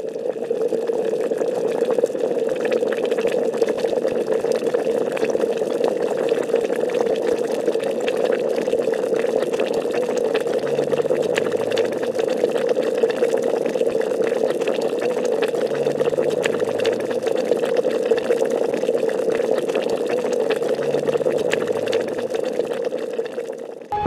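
Kelle paça soup bubbling at the boil in a metal bowl: a steady bubbling with many small pops.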